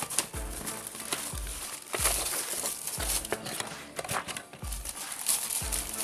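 Clear plastic bag crinkling and rustling as it is handled and pulled from a cardboard box, over background music with a steady kick-drum beat.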